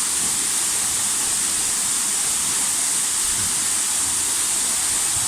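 Waterfall pouring: a steady, even rush of falling water with a bright hiss.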